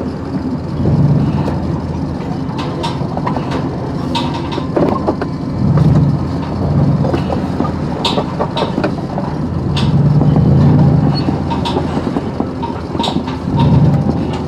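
A vehicle engine running, swelling louder about four times, with sharp metallic clanks now and then.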